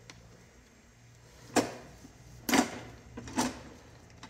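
Three sharp clunks of hard plastic, roughly a second apart, from the SNOO bassinet's opened plastic base as it is handled, with a few faint clicks between them.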